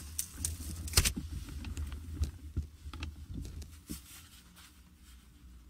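Handling noise inside a cardboard box: scattered scuffs and knocks against the cardboard over a low rumble, with one sharp knock about a second in, growing quieter toward the end.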